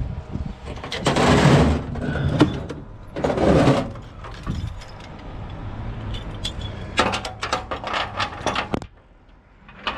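A tire tie-down strap being fitted and tightened on a car-hauler deck. Two rushing noises about a second long, then a quick run of sharp metallic clicks about seven seconds in as the strap is ratcheted down.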